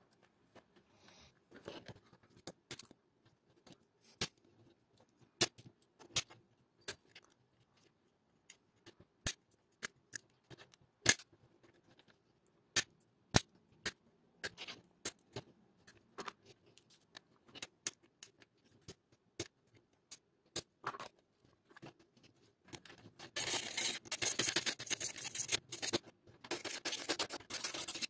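Diagonal side cutters snipping a black plastic DVD-drive part, heard as a string of separate sharp snaps. Over the last few seconds a hand file rasps steadily on the cut plastic.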